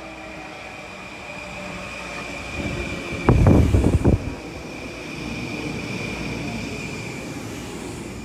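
Long Island Rail Road Kawasaki M9 electric multiple-unit train pulling into the platform, its motor whine falling in pitch at first over a steady high whine. About three and a half seconds in there is a burst of loud knocks as the cars come alongside, then a steady rumble as the cars roll past.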